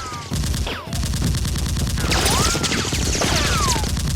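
Rapid automatic gunfire, dense overlapping shots, laid over a Nerf gunfight as sound effects, with several whistling glides falling in pitch among the shots. The firing thins briefly about half a second in, then carries on.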